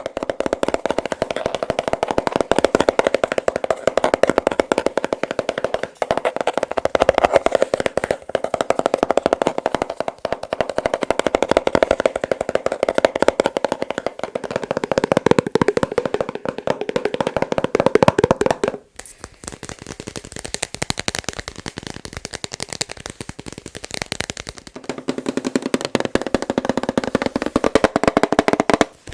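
Fast tapping on hand-held objects, many taps a second in a dense, continuous patter. The tapped object changes after a brief pause about 19 seconds in and again around 25 seconds, and the taps take on a different, lower resonance.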